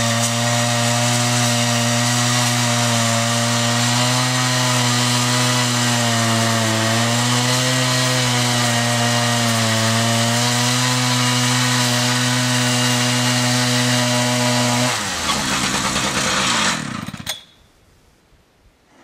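The engine of a homebuilt Procut mobile sawmill runs hard as the saw cuts through a cedar log to mill a 6x6 post, holding a steady pitch with two brief dips. About 15 seconds in it drops off and winds down, then cuts off about two seconds later.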